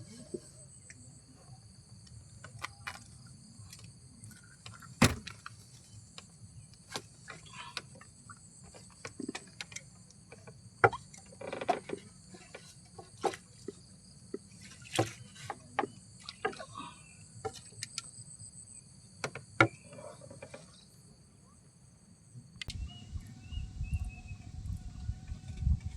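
A steady, high-pitched chorus of insects, with many scattered short clicks and knocks. Near the end the chorus cuts off and a low rumble takes over.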